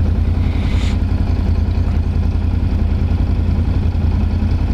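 Can-Am Renegade 1000 quad's V-twin engine running steadily at low speed, a pulsing low rumble, with a brief hiss in the first second.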